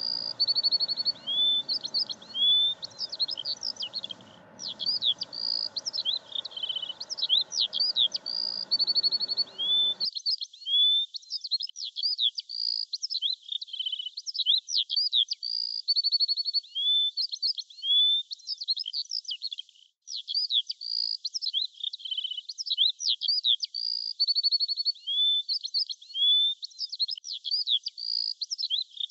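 Songbird singing: quick high chirps, rising sweeps and fast rattling trills in a phrase pattern that repeats over and over.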